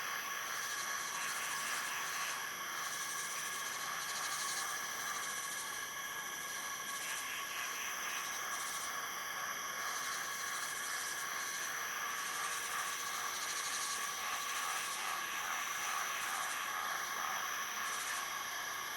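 Tropical rainforest insect chorus: several layers of steady high-pitched buzzing and trilling at different pitches, the highest layers pulsing on and off every second or so.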